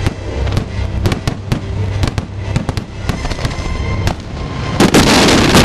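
Display fireworks exploding overhead, with many sharp bangs in quick succession. The loudest and densest stretch comes near the end and cuts off suddenly.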